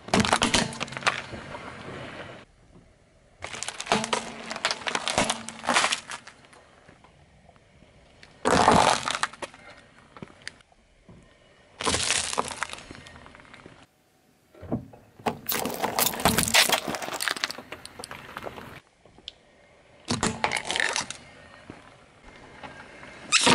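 A car tyre rolling over small objects and crushing them: plastic cracking and hard candy crunching. There are about seven separate bursts, each one to three seconds long, with quiet gaps between them.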